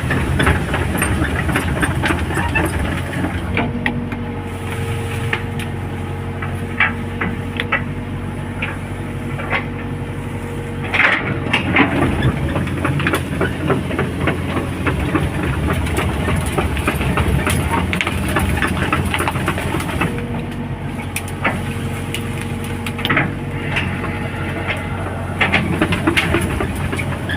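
Hitachi hydraulic excavator's diesel engine running steadily, with frequent clanks and rattles from the machine. A steady whine comes in twice, for several seconds each time, as the machine works.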